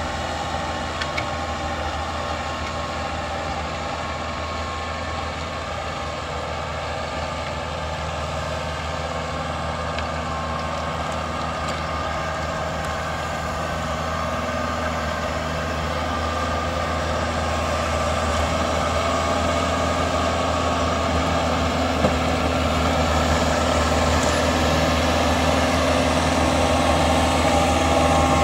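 Kubota tractor's diesel engine running steadily as it pulls a rotary tiller and ridger through the soil, growing louder in the second half as the tractor comes close.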